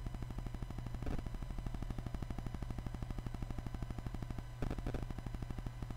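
Countdown-timer background track: a fast, even low pulse over a steady hum, with two brief noisy swishes, one about a second in and one near five seconds in.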